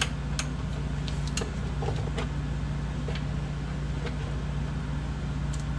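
Socket ratchet working the bellhousing bolts, giving a few scattered light metallic clicks and ticks over a steady low hum.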